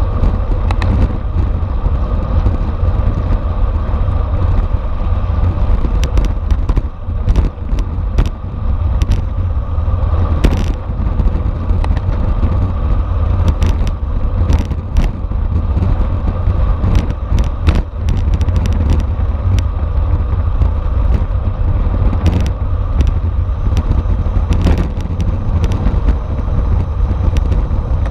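Wind rushing over the microphone of an onboard camera on a racing bicycle at speed, with a faint steady hum underneath and scattered sharp clicks and rattles.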